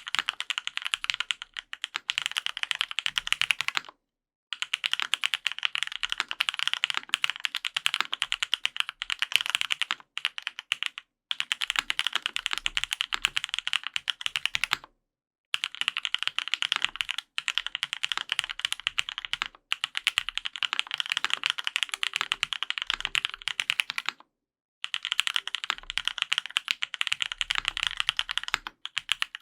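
Fast typing on a custom gasket-mount Matrix 8XV 3.0 mechanical keyboard with lubed Gateron Yellow Pro linear switches, an aluminium plate and GMK keycaps: a dense run of keystrokes broken by a few brief pauses.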